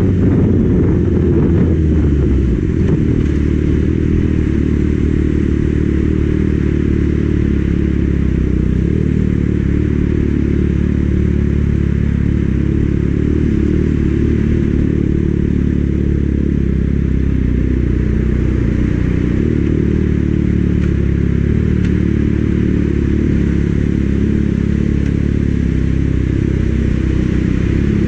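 Kawasaki Ninja ZX-6R's inline-four engine running under way at steady revs, with wind rushing over the microphone.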